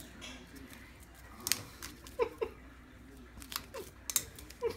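Guinea pig moving through dry hay bedding: scattered crisp rustles and crackles. A few short squeaky chirps come in the second half.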